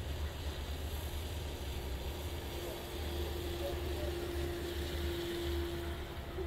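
Lorry moving slowly past on a wet road: a low engine rumble over a steady hiss of rain and tyres on wet tarmac, with a thin steady whine for a few seconds midway.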